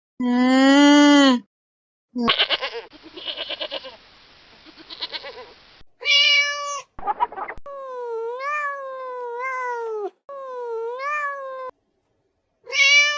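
A string of separate domestic animal calls cut one after another, cat or kitten meows and goat-like bleats among them, each a pitched cry that bends up and down and stops abruptly before the next begins.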